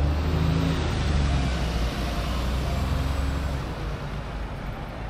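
Double-decker tour bus passing close by and pulling away, its engine rumble loud at first and then falling away about three and a half seconds in, leaving steady street traffic.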